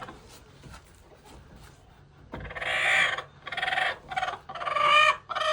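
Chickens calling: quiet for about two seconds, then four or so drawn-out calls about a second apart.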